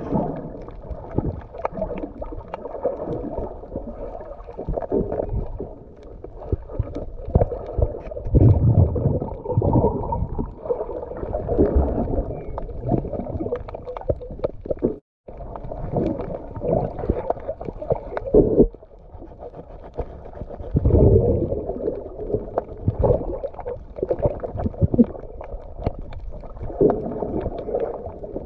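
Muffled underwater water sound: irregular gurgling and low rumbling swells with scattered small clicks. It cuts out completely for a moment about halfway through.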